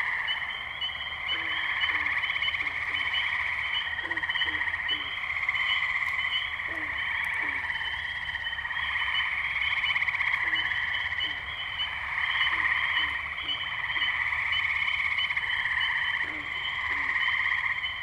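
A chorus of tree frogs: long trills overlapping one another, each swelling for a couple of seconds, with a steady run of short, higher chirps over them.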